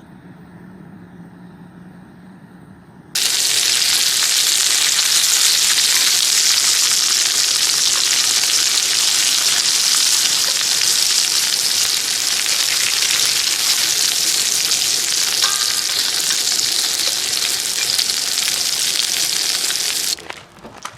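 Food sizzling loudly in a hot pan, starting abruptly about three seconds in, holding steady, and cutting off sharply near the end.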